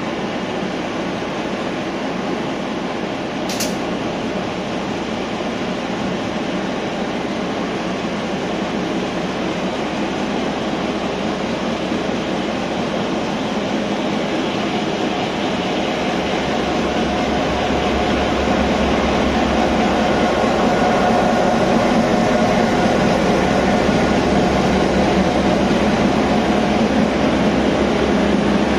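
Taiwan Railways R47 diesel-electric locomotive's engine running as the train pulls out, a steady hum that grows louder from about halfway through as the locomotive draws near and passes. The coaches roll by near the end.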